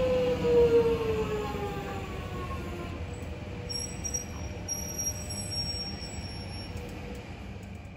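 Electric suburban train's traction motors whining, the pitch falling steadily as the train slows. The whine is loudest about half a second in, then eases into a quieter rumble, with a faint high-pitched squeal from about four seconds in.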